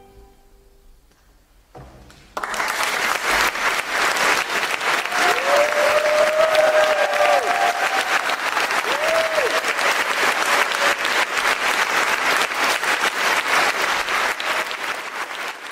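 A last piano chord dies away. About two seconds later an audience breaks into steady applause, with a couple of long calls from the crowd heard above the clapping.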